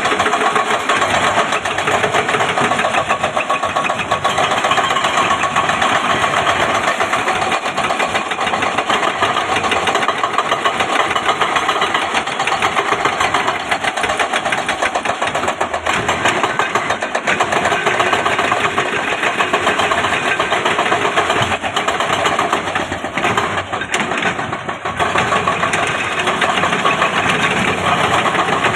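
Heavy diesel engine of earthmoving machinery running steadily with a fast, even rattle. It dips briefly in loudness near the end.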